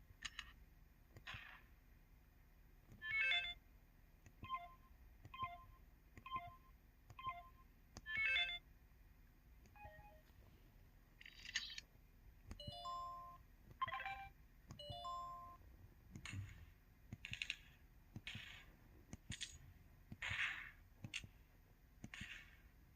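Mobile phone menu and button sound effects from the 'Gun' sound theme, played one after another: a series of short electronic sounds about a second apart, mixing noisy shot-like clicks and bursts with brief beeps.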